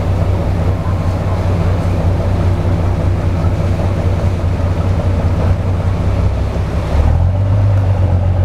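A small harbour shuttle boat's engine running steadily, heard from aboard, over water wash and wind on the microphone. About seven seconds in, the engine note shifts slightly higher.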